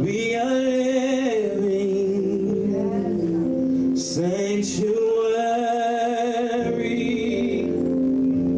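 Gospel worship singing: a singer holds long, sliding notes with vibrato, in two phrases, over sustained instrumental backing.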